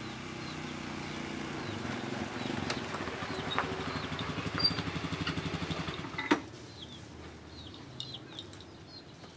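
Small motorcycle engine running as it pulls up and idles with a pulsing beat, then cut off with a sharp knock about six seconds in.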